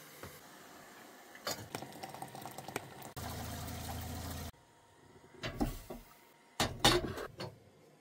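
Tap water running into a kettle in a stainless steel sink, a steady rush that stops suddenly when the tap is shut, after a few clinks of handling. A few louder clunks follow near the end.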